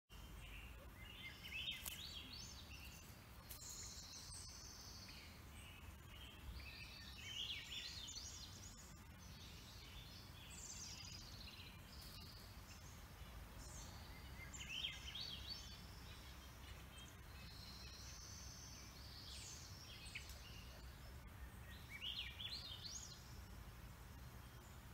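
Small songbirds singing faintly: short, quick, high-pitched phrases that come every few seconds, over a steady low background hum.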